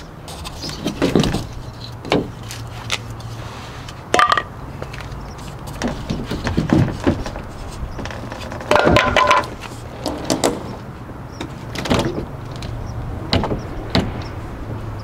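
A-frame camper's hinged roof panel being lowered onto the trailer wall, its edge riding over newly fitted ball transfer bearings in a first test of the fix for the panel rubbing the side. About ten knocks and clunks of the panel and its fittings, two of them with a short ringing note.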